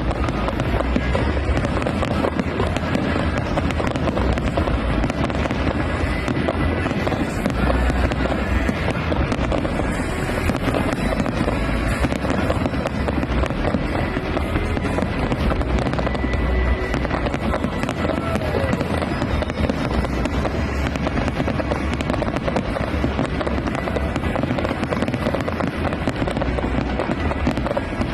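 A fireworks display with dense, continuous crackling and popping and deep booms of bursting shells, over music playing.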